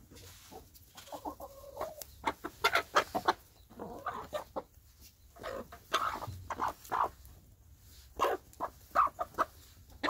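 Domestic hens clucking softly while they feed, mixed with quick sharp taps from their beaks pecking at bread and crumbs on dirt ground.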